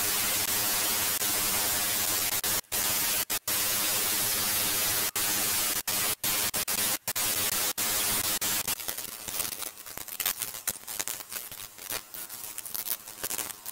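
Handheld electric belt file (narrow-belt power sander) running and sanding a wooden beech slingshot handle with a 180-grit belt: a steady hiss with a motor hum, broken by several short gaps. From about eight and a half seconds in, the sound turns to irregular scraping strokes of a hand file on the wood.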